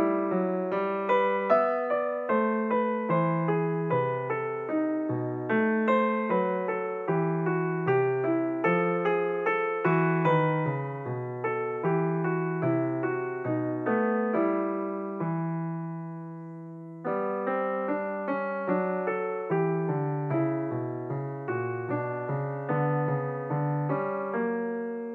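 Background solo piano music, a steady run of notes. About two-thirds of the way through, a held chord dies away before the playing resumes.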